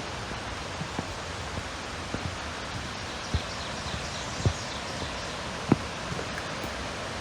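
Footsteps on a forest trail, irregular soft thuds over a steady rushing noise from the nearby waterfall. A bird gives a short, quick high trill about three seconds in.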